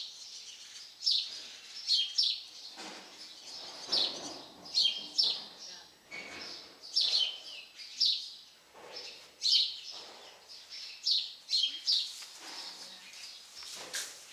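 Small birds chirping over and over, short high chirps coming about once or twice a second, with fainter rustling underneath.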